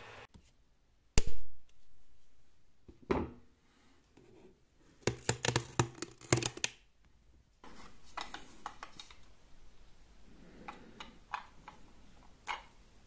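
Handling noises from working with LED strip: a sharp knock about a second in, a second knock, then a quick run of taps and clicks. After that come scattered small ticks and rustles over a faint steady hiss as a length of self-adhesive LED strip is pressed onto a block.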